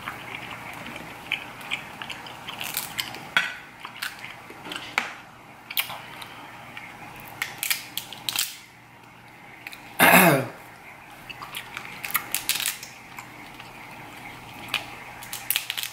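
King crab leg shells being cracked and pulled apart by hand: a scattered series of sharp cracks and crunches. About ten seconds in there is a brief vocal sound.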